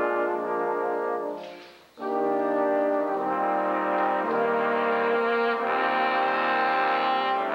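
A brass quartet of trumpets and trombones plays a held, moving chordal passage. About a second and a half in, the music fades out briefly, then comes back abruptly.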